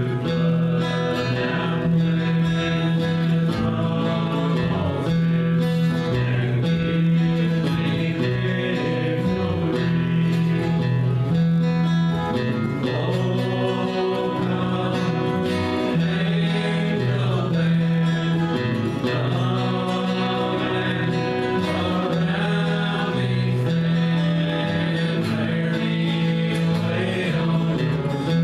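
A men's vocal group singing a gospel song to acoustic guitar accompaniment, over a bass line that steps between a few low notes.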